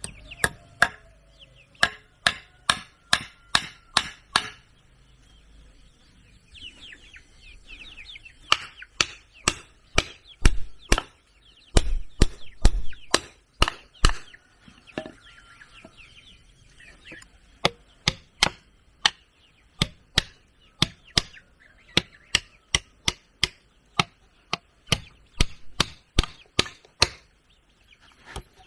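Repeated blows of a tool striking wood, about two to three a second in runs with short pauses between them, typical of chopping while building. Birds chirp faintly in the background during the first half.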